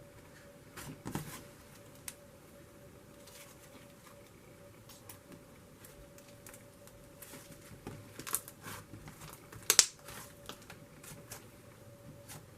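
Slime being handled: faint, scattered squishes and small crackling clicks, with a louder quick pair of pops about ten seconds in.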